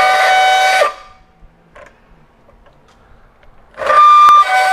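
Makita GBP01 cordless band saw cutting 1/8-inch-thick steel tube, giving a loud, steady, whistling squeal that stops suddenly about a second in; the blade is the wrong one for this thick steel and is being worn out. Music starts near the end.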